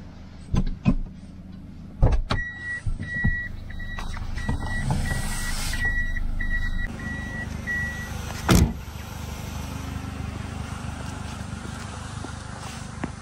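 A vehicle running with a steady low rumble while an electronic beeper sounds short, even beeps at one pitch, about two a second, for some six seconds. Sharp knocks come near the start, and there is one louder knock just after the beeping stops.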